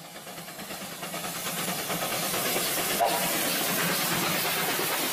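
Steam locomotive running past, its steam hissing steadily; the sound grows louder over the first two seconds and then holds.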